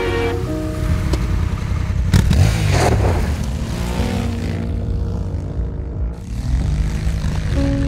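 Honda Africa Twin Adventure Sports' parallel-twin engine revving, rising and falling in pitch as the bike is ridden on loose dirt, with a loud rush of noise about two seconds in and dirt spraying from the tyres.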